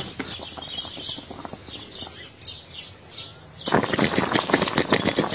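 Small birds chirping faintly. At about two-thirds of the way in, a louder dense crackling of broth bubbling in a clay pot of simmering beef offal begins.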